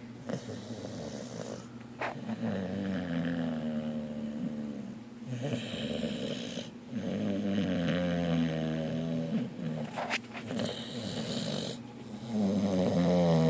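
A sleeping dog snoring, with a snore on each breath about every two to three seconds.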